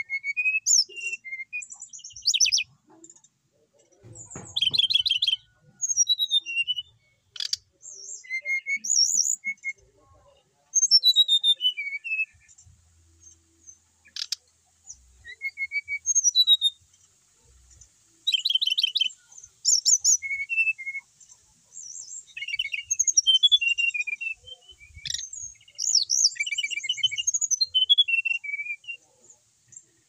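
Fulvous-chested jungle flycatcher singing actively: a varied song of short warbled phrases, rapid trills and high whistled glides, delivered in bursts with brief pauses between them.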